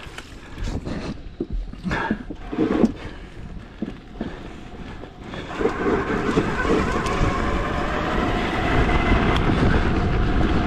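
Bowhead Reach adaptive mountain trike rolling over a wooden plank bridge with a few knocks and rattles, then its knobby tyres running on a gravel road, with wind noise on the microphone growing louder about halfway through.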